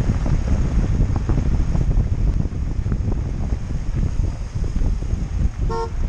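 Jeep Wrangler driving on a dirt road, heard from a camera mounted low beside its rear tyre: heavy wind buffeting on the microphone over the rumble and crackle of tyres on gravel. A brief squeak near the end.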